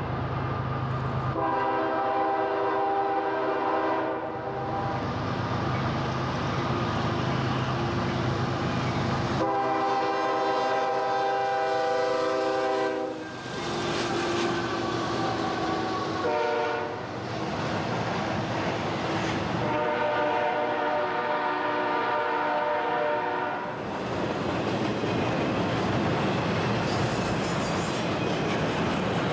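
CSX freight train's locomotive air horn sounding four blasts, long, long, short, long: the standard grade-crossing warning. Between and after the blasts, the steady rumble and wheel clatter of the locomotives and double-stack container cars passing close by.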